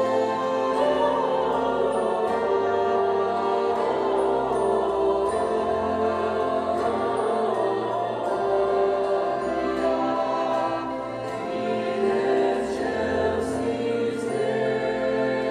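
Christmas show music: a choir singing long held chords over an orchestral backing.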